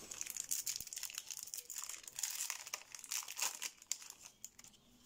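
Foil wrapper of a Yu-Gi-Oh booster pack crinkling and crackling as it is handled, dense for about four seconds, then thinning to a few scattered crackles near the end.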